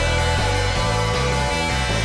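Rock music with guitar over a pulsing bass line that changes note every quarter second or so, playing steadily.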